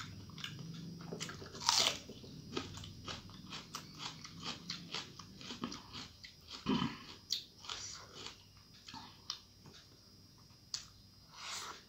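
Close-miked eating sounds of a person chewing mouthfuls of rice mixed with curry: a quick run of wet mouth clicks and smacks, with a louder breathy sound about two seconds in and again near the end.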